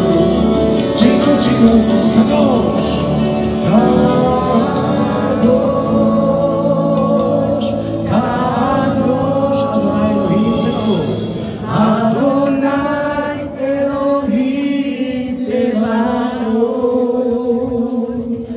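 Christian worship song: singing over a musical backing.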